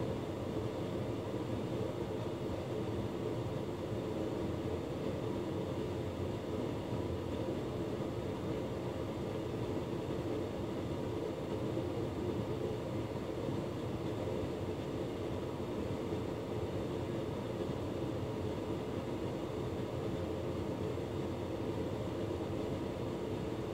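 Hotpoint Ultima S-Line tumble dryer running, its drum turning with a steady motor and fan hum.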